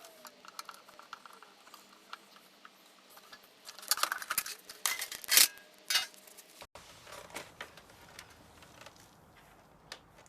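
Light metallic clicks and clatter of small steel parts and screws being handled while a VCR is taken apart by hand. The clicks are sparse at first, then a cluster of sharper clinks comes about four to six seconds in.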